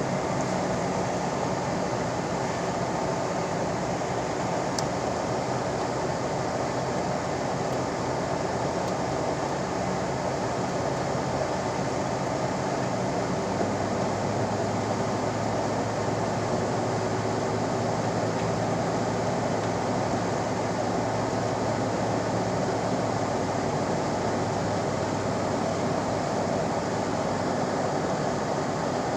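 Steady road noise inside a moving car's cabin: tyres and engine running at cruising speed, with a low engine hum that changes pitch about halfway through.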